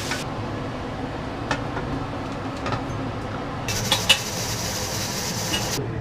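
Kitchen cooking sounds over a steady low hum: scattered clinks of pots and metal utensils, and a high hiss from just before four seconds to near six seconds, with two sharper clinks near four seconds.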